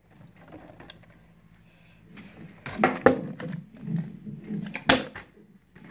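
A partly filled plastic water bottle knocking down on a wooden floor in a bottle flip: a couple of knocks about three seconds in and a sharper, louder one near five seconds.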